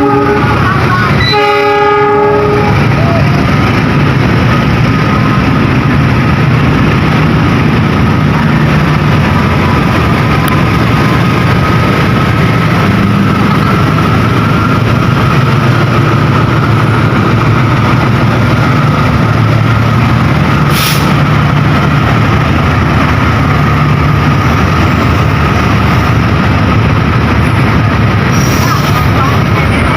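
A train sounds a short horn blast just after the start, then runs close past, with a loud, steady rumble of wheels on the rails that lasts the rest of the time.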